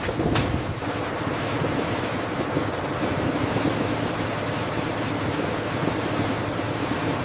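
Industrial processing machinery running steadily: a continuous rushing noise with a faint low hum, and a single click just after the start.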